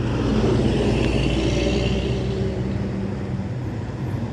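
Bus engine running close by as it moves slowly through jammed traffic, a steady low hum with a hiss that swells and fades in the middle.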